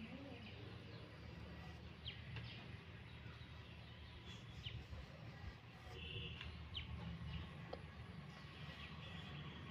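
Faint birds chirping, a few short high calls a couple of seconds apart, over a low steady background hum.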